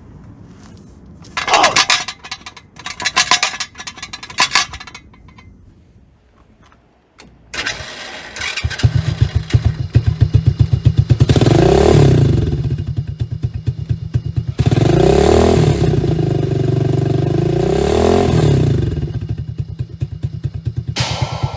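APTrikes125 trike's 125cc engine cranked in three short tries, catching about seven seconds in, then idling with a steady pulse and revved up and down twice. The muffler is suspected of making an abnormal noise.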